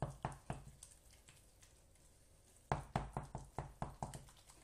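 Wooden spoon knocking against a glass bowl while beaten egg is worked into stiff choux paste (panade) that has not yet come together. A few quick knocks at the start, a pause, then a run of about eight knocks, roughly five a second, from about three seconds in.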